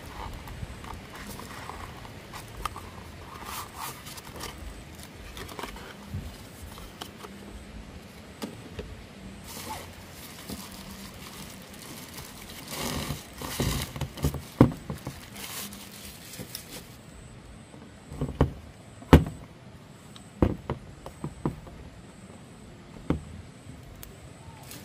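Unboxing a power bank: the cardboard box sleeve sliding and rustling, then a thin plastic bag crinkling as it is pulled off the unit. Toward the end come a few sharp knocks as the hard plastic power bank is set down and handled on the table.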